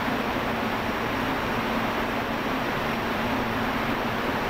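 Steady factory background noise: an even rush with a low hum, unchanging throughout.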